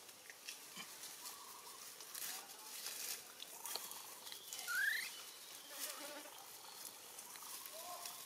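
Dry leaf litter crackling and rustling under a baby monkey's hands and feet as it walks across the ground, with a short rising squeak about five seconds in.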